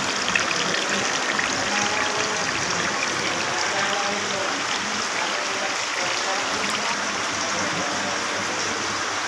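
Water running steadily down a decorative water-wall fountain and falling into its basin, a continuous trickle.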